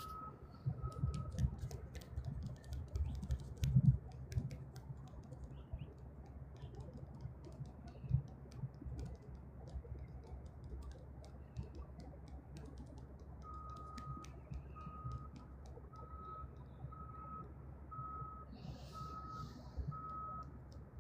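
A vehicle's reversing beeper sounding, one steady high beep about once a second, briefly at the start and again through the last seven seconds. Under it a low rumble runs throughout, with scattered clicks and a sharp thump about four seconds in.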